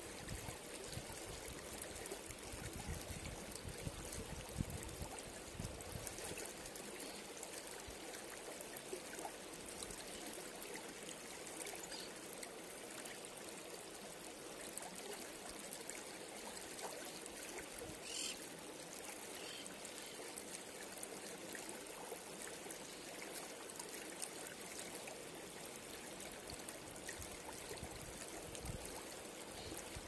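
Shallow mountain river running over rocks: a steady, even rush of water. A brief high sound comes a little past halfway.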